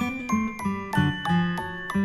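Instrumental intro music: a bright tune of quick, distinct notes, about three a second.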